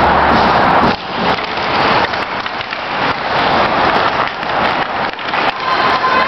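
Ice hockey play on a rink: a steady, noisy hiss with scattered sharp clacks of sticks and puck.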